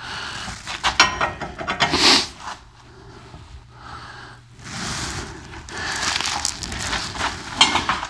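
Steel tools clinking and rattling as they are handled and fitted onto a hub puller, in clusters of sharp clicks about one and two seconds in and again near the end.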